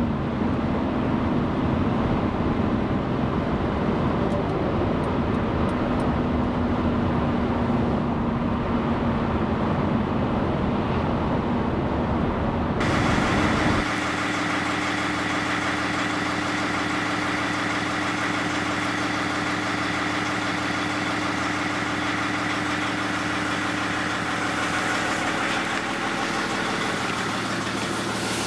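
A motor running steadily, with a low hum and steady tones. About 13 seconds in, its sound changes abruptly: the low rumble drops out and a brighter, higher whine comes in.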